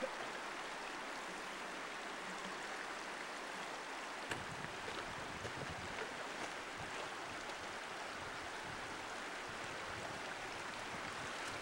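Creek water running over a shallow, stony bed: a steady, even rush, with a single click about four seconds in.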